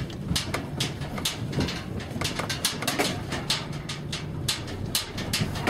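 Inside a car driving slowly over a bumpy dirt track: a steady low engine hum under many irregular sharp knocks and rattles from the bouncing car.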